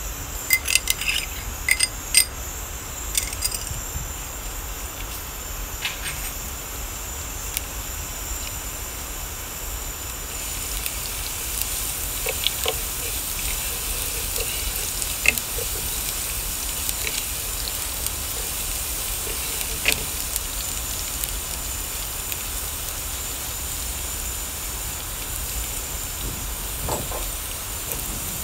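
Minced garlic sizzling in hot oil in a nonstick frying pan, stirred with a wooden spatula. There are a few sharp clicks in the first few seconds, and the sizzle grows stronger about ten seconds in and keeps up steadily.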